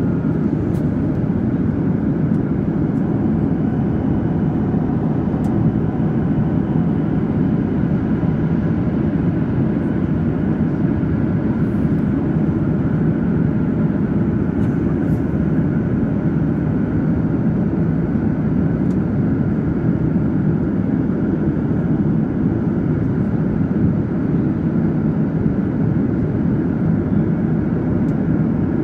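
Steady cabin noise of a Boeing 737-800 in cruise flight: its CFM56 jet engines and the airflow over the fuselage make an even, unchanging low rush.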